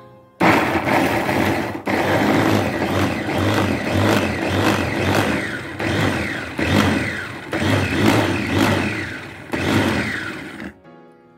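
Small electric food chopper (SK brand) running, its blade grinding shallots, garlic, chilies and tomato into a spice paste. The motor starts about half a second in, runs in pulses that slacken and pick up again several times as the top button is pressed, and cuts off near the end.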